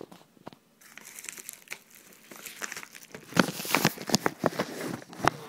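A padded mailer envelope crinkling and crackling as it is handled and pulled open. The crackles are sparse at first, then louder and denser from about three seconds in.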